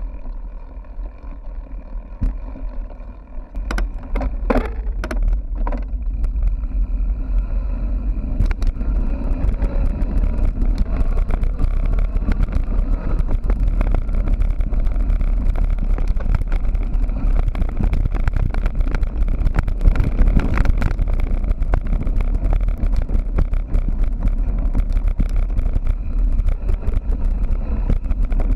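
Mountain bike ridden fast, heard from a GoPro riding on it: steady wind rumble on the microphone and tyre noise, with rattles and knocks from the bike over rough ground, louder from about four seconds in.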